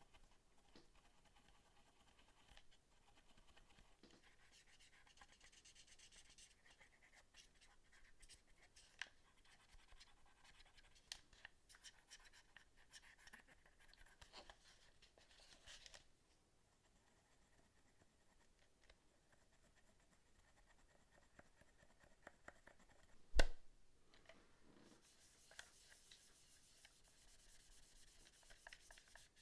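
Faint scratching and rubbing as a PlayStation 4 controller's parts are cleaned and handled by hand, with small plastic ticks throughout and one sharp click about two-thirds through.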